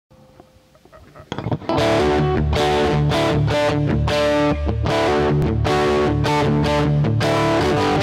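Electric guitar, a Fender Stratocaster played through a Marshall Jackhammer JH-1 distortion pedal, playing a distorted rock riff of repeated strummed chords. The playing comes in after a faint first second or so.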